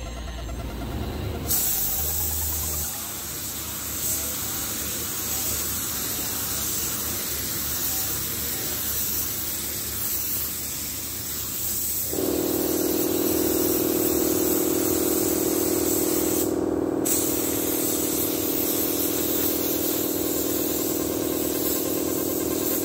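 Gravity-feed compressed-air paint spray gun hissing as it sprays. The hiss starts about a second and a half in and breaks off briefly around seventeen seconds. A steady hum of several held tones comes in about halfway through.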